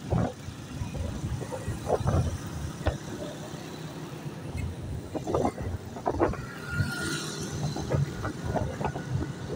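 Motorcycle engine running as the bike rides along a street, with other motorcycles and auto-rickshaws in the traffic around it.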